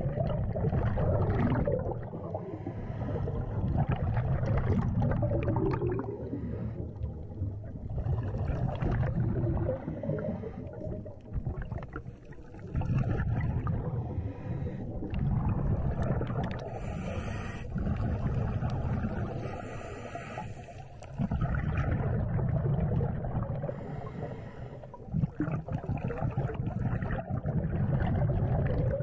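Scuba regulator breathing heard underwater: every few seconds a long stretch of exhaled bubbles rumbling and gurgling, with quieter gaps between breaths.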